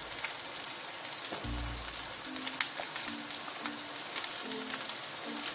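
Hand potato masher pushed down into a steel pot of potatoes simmering in broth, crushing the potatoes to thicken the soup: a steady bubbling hiss with scattered clicks of the masher against the pot, and a dull thump about a second and a half in.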